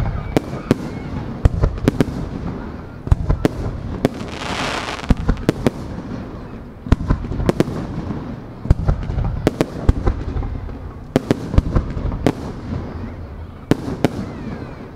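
Aerial firework shells bursting overhead in quick succession: a long run of sharp booms, often less than a second apart, with a brief rushing hiss about four and a half seconds in.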